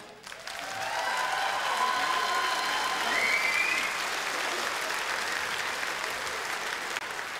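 Audience applause for a band that has just finished its piece. It builds up within the first second and then holds steady.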